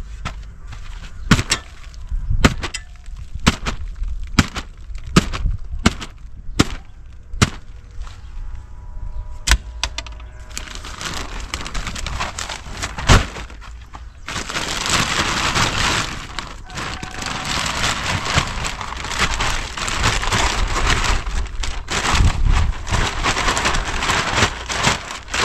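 A run of sharp knocks and cracks, about one a second, during the first ten seconds. Then compost pouring out of a large plastic sack onto the soil: a dense, continuous rustling hiss with the plastic crinkling, growing loud about fourteen seconds in.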